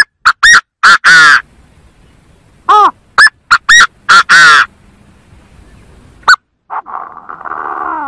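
Chinese francolin calling: loud, harsh phrases of five or six rising-and-falling notes, the last one drawn out, repeated about every three seconds. A single short note and a rougher, buzzy call follow near the end.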